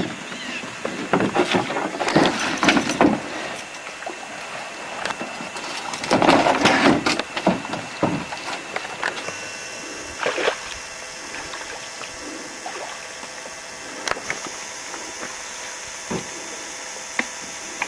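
Canoe paddles dipping and splashing in the water in irregular bursts, the biggest splashes about a second and six seconds in, with a few light knocks.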